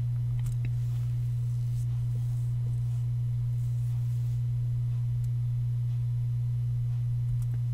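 Steady low electrical hum on the recording: one unchanging low tone with nothing else heard.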